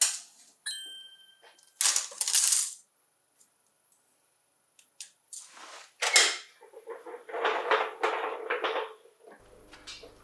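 Metal handling noises: a sharp metallic clink that rings briefly, followed by irregular clattering and rustling bursts.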